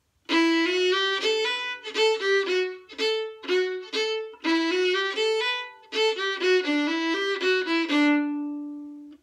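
Solo fiddle playing one phrase of an old-time fiddle tune in the key of D: a run of short bowed notes in several quick groups, ending on a long held low note that fades away.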